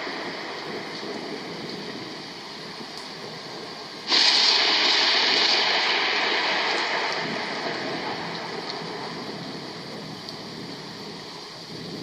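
Thunder: a steady noise, then a sudden loud crack about four seconds in that fades away slowly over the next several seconds.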